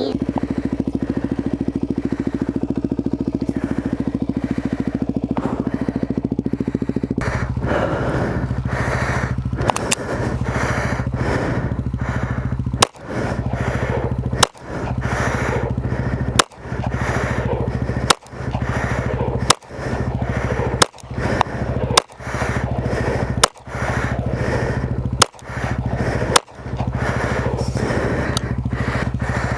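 Handgun shots fired one at a time, about a dozen, roughly every one and a half seconds, beginning about seven seconds in. A steady low hum runs underneath, and after each shot the level drops and climbs back.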